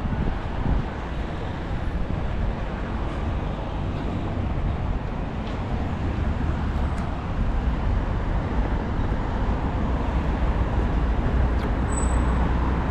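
Steady road traffic noise, a continuous low rumble that grows a little louder in the second half.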